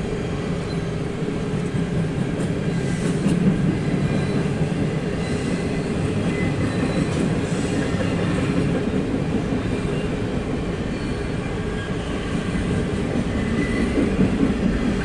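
Train passing on the track: a steady rumble of railroad cars rolling by, with faint high wheel squeal.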